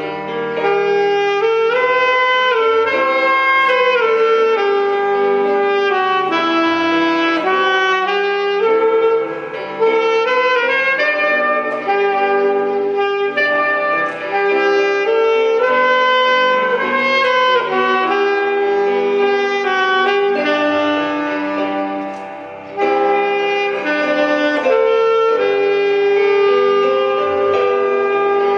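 Saxophone playing a melody of mostly held notes, one after another, with two short breaks for breath, about a third and three-quarters of the way through.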